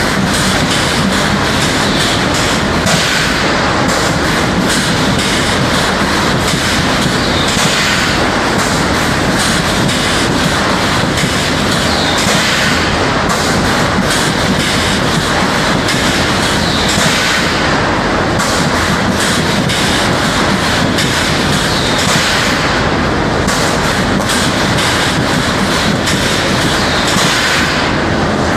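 Golden Spot SA-2000AF-A multi-point wire mesh welding machine running: a loud, continuous mechanical clatter from the row of welding heads as they cycle and spot-weld the mesh, swelling about every four to five seconds.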